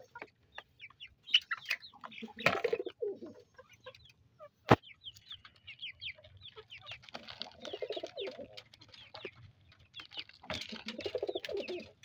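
Hens clucking and pigeons cooing, mixed with quick high chirps from other cage birds. A single sharp click comes about halfway through.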